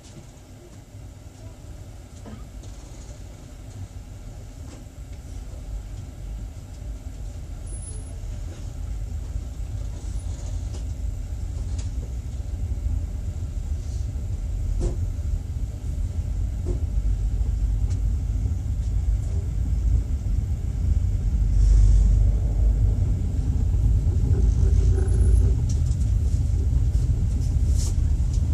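Low rumble of a passenger train's wheels and running gear, heard from inside the carriage, growing steadily louder as the train pulls away from the station and gathers speed, with a few faint clicks along the way.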